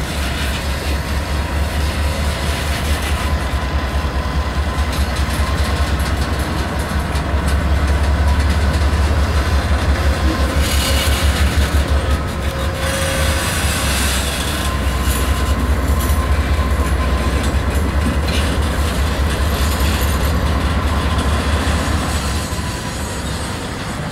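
Norfolk Southern diesel locomotives working at low speed while shunting a freight train: a steady low engine throb, with the cars' wheels clattering over rail joints. A burst of harsher, higher noise comes about halfway through.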